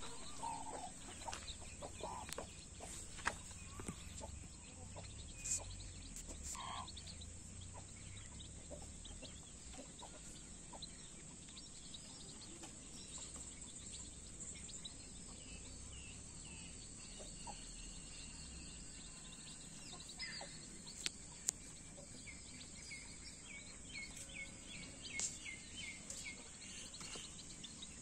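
A brood of desi chicks peeping softly while they feed, with the mother hen clucking now and then, and a quick run of repeated peeps near the end. A steady high-pitched hiss runs underneath.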